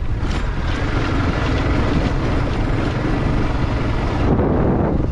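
Yamaha R15 V2's single-cylinder four-stroke engine running steadily as the motorcycle rides along a stony dirt track, mixed with wind noise on the action-camera microphone.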